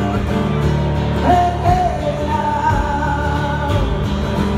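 Live acoustic guitar strumming with a bass drum under it, and long held sung notes between the lyric lines of a folk song.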